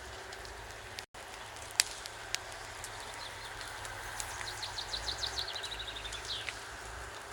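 A songbird singing one phrase of quick repeated high notes, ending in a falling sweep. A few sharp clicks come over a steady background.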